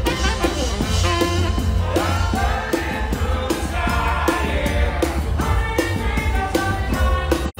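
Saxophone playing a gliding melody over dance music with a steady drum beat. The sound cuts out briefly near the end.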